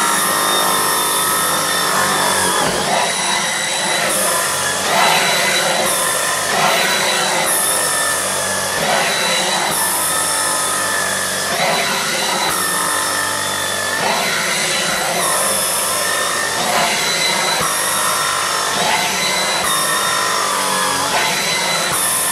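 Dyson V15 cordless stick vacuum running at a steady high whine while its brush head is worked back and forth over a quilted fabric pet mat, lifting cat hair. A higher hiss swells and fades every couple of seconds with the strokes.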